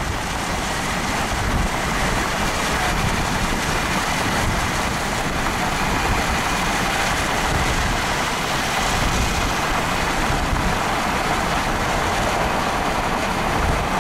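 Steady rushing road and wind noise of a car driving, heard from inside the car.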